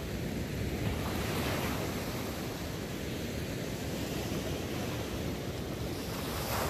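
Ocean surf: small waves breaking and washing up the sand in a steady wash, with a louder swell of surf near the end.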